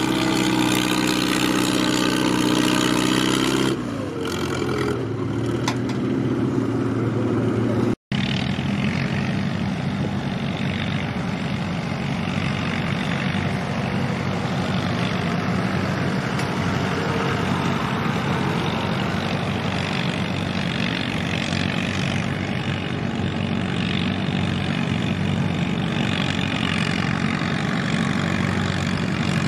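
A Farmall M tractor's four-cylinder engine runs hard under load with a steady pitched drone, then drops off about four seconds in. After an abrupt cut about eight seconds in, tractor engines run steadily at low speed.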